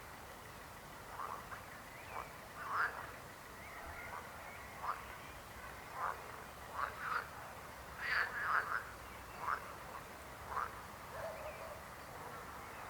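Frogs croaking: short, scattered croaks about one a second, with a denser run of calls about eight seconds in.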